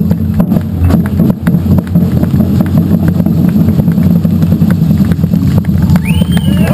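Samba percussion band drumming loudly in a dense, driving rhythm led by deep surdo bass drums. A short rising-and-falling high tone cuts in near the end.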